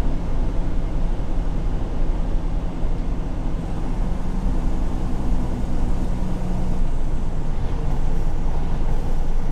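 Freightliner Cascadia semi-truck running down the road, heard from inside the cab: a steady low engine and road rumble, with the engine's tone coming up for a few seconds midway and then easing off.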